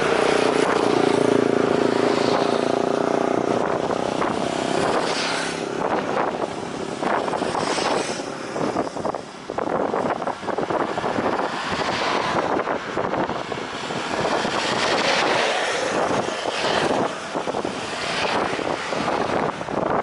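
Roadside outdoor noise: passing road traffic and wind buffeting the microphone, with a vehicle engine's hum loudest in the first three seconds.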